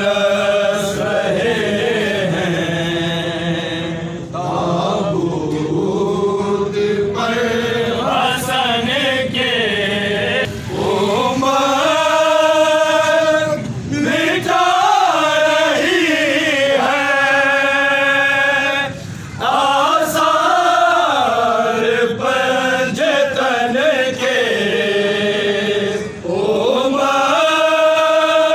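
Men's voices chanting a soz, a Shia mourning elegy: one reciter leads and a group of men sings along with him. It goes in long phrases of held, sliding notes, with short breaks between them.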